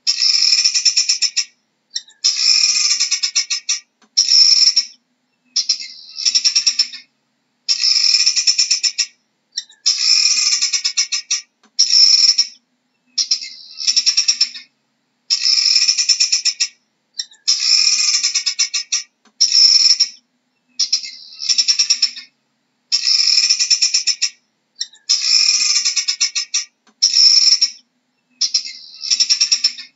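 Helmeted guineafowl calling: a fast, rattling chatter in bursts of about a second, some broken in two, repeated every couple of seconds.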